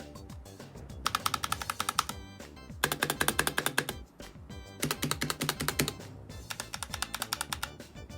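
Rapid typing on a Razer Huntsman V3 Pro gaming keyboard with analog optical switches: four separate bursts of quick key clacks, each about a second long, with short pauses between. It is a with-and-without comparison of the keyboard's sound when damped with felt cut to size and stacked inside. Background music runs underneath.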